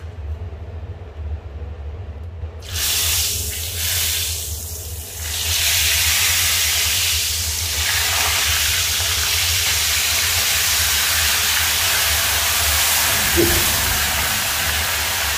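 Fish frying in hot oil in a frying pan on a gas stove: a loud sizzle starts suddenly about three seconds in, comes in waves, then runs steady and hissing. A low steady hum lies beneath it, with a brief clink near the end.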